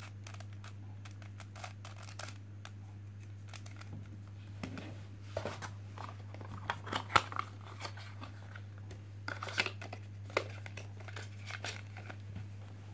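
Scattered plastic clicks and rustles from handling, in irregular clusters with quieter gaps, over a steady low electrical hum.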